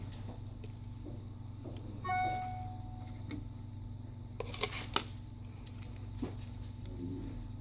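Small sharp clicks and taps as a Samsung Galaxy S5's battery is taken out and refitted. A short electronic beep sounds about two seconds in. A steady low hum runs underneath.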